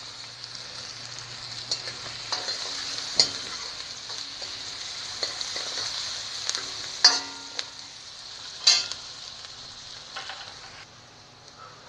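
Chopped onions sizzling in hot ghee in a kadhai, with a spatula now and then knocking and scraping against the pan as they are stirred. The sizzle dies down near the end.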